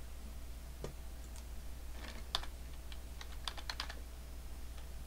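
Typing on a computer keyboard: a couple of separate key clicks, then a quick run of keystrokes about two seconds in as a short word is typed.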